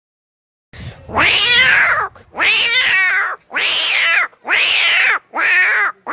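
A boy imitating fighting cats with his voice: five loud, drawn-out yowls in a row, each rising then falling in pitch with a wavering quiver.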